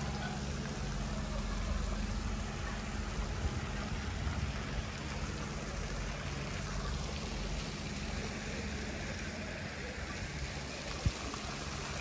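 Water jets of a ground-level plaza fountain splashing onto the paving, a steady hiss, over a low rumble. A single short knock about eleven seconds in.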